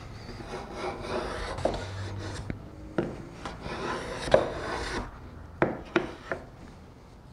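Lie-Nielsen low-angle rabbet block plane cutting a rabbet in a cherry board: two long strokes of the blade shaving the wood, followed by a few sharp knocks.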